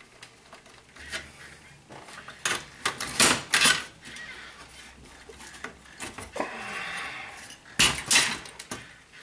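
Metallic clattering and knocking from dismantling an Xbox 360's sheet-steel chassis by hand: the screwdriver, screws and parts knock against the metal case. A loud cluster of knocks comes a few seconds in, a scraping rattle follows, and another loud burst comes near the end as the plastic cooling-fan assembly is pulled loose.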